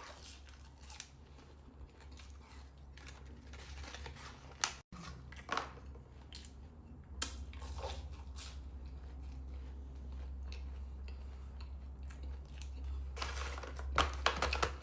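Close-miked eating: bites into and chewing of a Jollibee peach mango pie, with scattered crisp crackles and clicks, a few of them louder.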